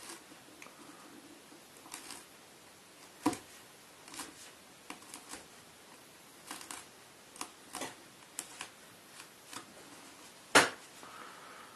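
A sharp knife cutting and scraping at the fabric sheathing of a bungee cord: irregular small scrapes and clicks, with two sharper knocks about three seconds in and near the end.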